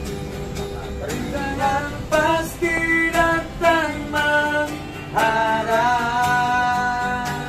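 Acoustic guitar strummed steadily while a man sings a wavering melody, holding one long note from about five seconds in to the end.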